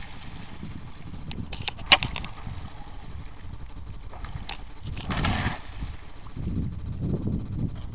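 Outdoor noise with no steady motor pitch, a sharp click about two seconds in with a few smaller clicks around it, and uneven low buffeting in the last few seconds, like wind and handling on the camera microphone.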